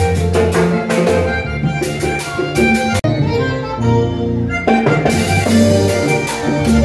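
Live band playing Latin dance music, with a button accordion over keyboard, guitars and a steady percussion beat. About three seconds in the percussion drops out for a moment, then comes back.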